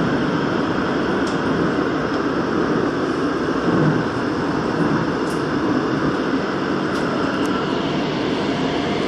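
Daegu Metro Line 2 subway train running through a tunnel, heard from inside the car: a steady noise of wheels on rails and air, with a few faint high ticks.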